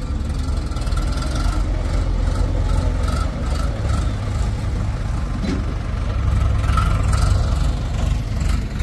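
Diesel farm tractor engine running steadily under load as it tows a heavy trailer-mounted mud-mixing machine.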